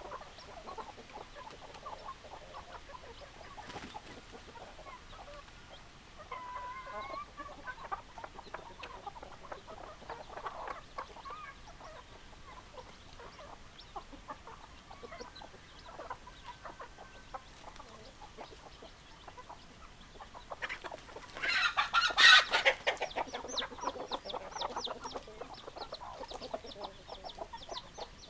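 Domestic chickens clucking throughout, with one loud call of about two seconds, most likely a rooster crowing, about three-quarters of the way through.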